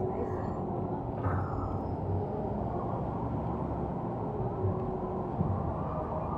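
Steady outdoor city background: a low rumble of traffic, with one short click about a second in.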